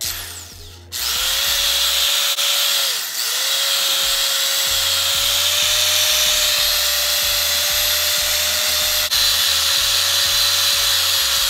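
Electric rotary polisher with a wool pad running against a plastic headlight lens: a loud, steady motor whine over whirring pad noise, starting about a second in. The whine dips briefly in pitch about three seconds in as the pad bears down, then holds steady.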